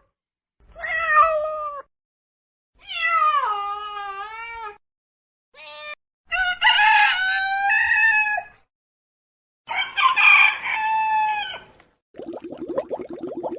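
A series of five separate animal calls, each a pitched cry, several falling in pitch, lasting from half a second to about two seconds, with silent gaps between them. Near the end a rapid pulsing, rattling sound starts.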